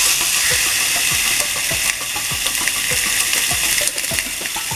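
Chicken breast sizzling on a searing hot grill: a sudden, steady, loud hiss of frying.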